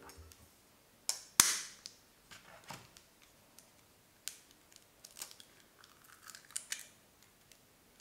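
Raw egg being cracked open by hand: a sharp crack about a second and a half in, then scattered lighter clicks and taps of the shell being pulled apart over a plastic egg separator on a glass bowl.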